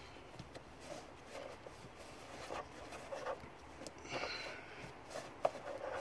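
Faint rubbing and rustling of a cloth rag wiping spilled fuel from around a newly installed fuel pump module and its locking ring, with one light click a little after five seconds in.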